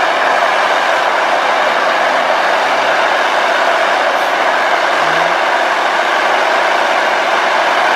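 Diesel engine of a large Fendt tractor running steadily under load as it pulls a plough through waterlogged mud.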